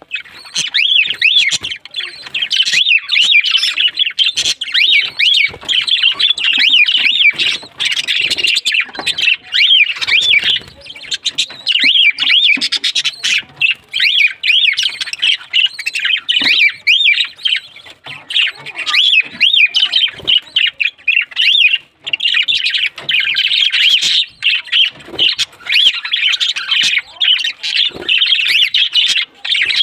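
A flock of small birds chattering and chirping without pause, many short, quick calls overlapping.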